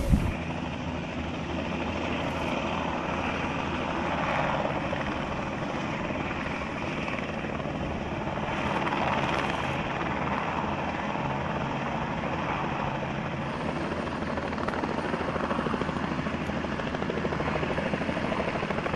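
Helicopter in flight: a steady rapid rotor chop over engine noise, swelling slightly now and then.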